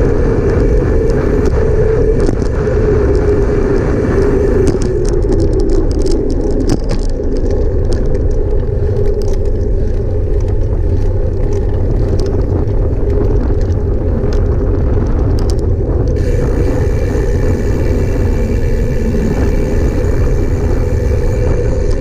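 A vehicle driving along a concrete road, heard from a camera mounted low on it: steady engine hum and heavy road rumble, the engine's pitch easing down over the first few seconds and then holding steady, with scattered light ticks from the tyres on the concrete.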